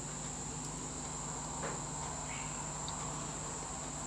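Quiet workshop background: a steady high-pitched whine over a low hum, with a faint tick or two as a small brass pin is set by hand into a threaded hole in a lathe's cast-iron tailstock.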